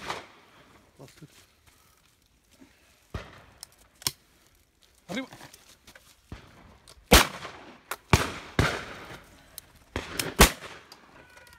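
Shotgun shots: a faint report about four seconds in, then four loud shots in the last five seconds, the middle two close together, with a fainter, more distant shot among them.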